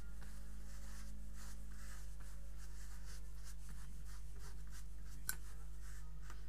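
Faint, quick rubbing strokes of makeup being worked onto the face by hand, over a steady low hum. A single sharp click about five seconds in.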